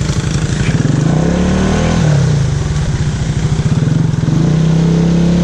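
ATV engine revving hard through mud: the revs climb, drop briefly about two seconds in, then are held high and steady near the end.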